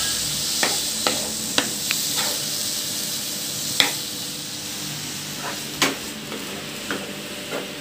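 Grated bottle gourd sizzling in ghee in a nonstick pan, stirred with a wooden spatula that knocks and scrapes against the pan about ten times at uneven intervals. The gourd is giving off its own water as it cooks down.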